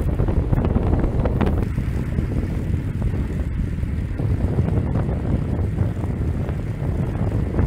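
Wind buffeting the microphone, over the steady low rumble of a vehicle driving alongside at cycling speed.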